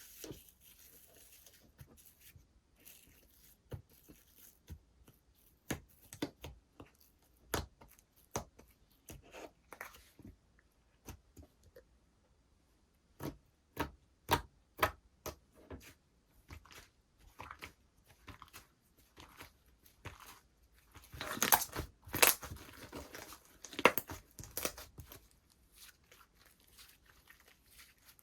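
Hands squeezing, stretching and poking slime, giving a series of sharp wet clicks and pops, with a denser, louder run of crackling over a few seconds near the end.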